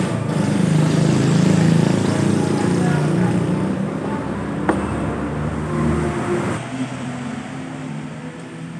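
Motor vehicle engine running with a steady low hum, loudest in the first couple of seconds and dropping away about two-thirds of the way through. A single sharp click sounds near the middle.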